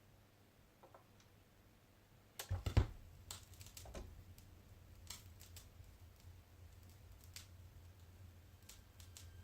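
Philips FP 930 (Dual 440) turntable's stylus set down on a record about two and a half seconds in, a low thump through the speakers. Scattered clicks and pops of the lead-in groove follow over a low hum.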